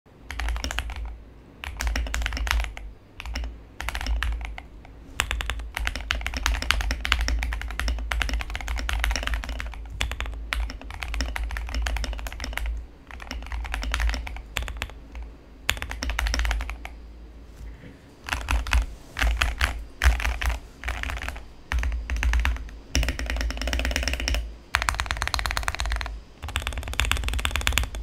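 Typing on an Acrylic67 custom mechanical keyboard with lubed Alpaca linear switches: runs of fast keystrokes, broken by short pauses every few seconds.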